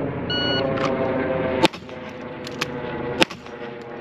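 A shot timer's short electronic start beep, then two pistol shots about a second and a half apart, with a few light clicks of the magazine reload between them.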